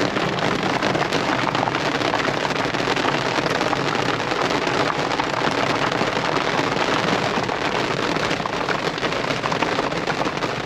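Heavy rain drumming on the Jeep's roof and windows, heard from inside the cabin: a dense, steady patter of drops that never lets up.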